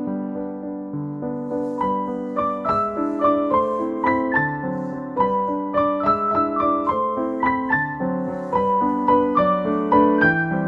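Background music: a gentle piano melody.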